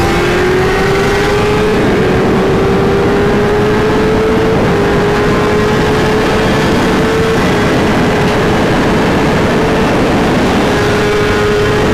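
Heavy wind noise on a helmet camera at high speed, with a 1000 cc sportbike engine under full throttle during a rolling acceleration run. The engine note rises slowly for about the first seven seconds, then holds steady.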